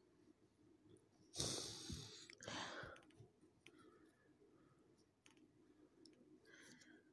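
Mostly near silence, broken about a second and a half in by two short breathy rushes, a sigh close to the microphone, with a few faint clicks.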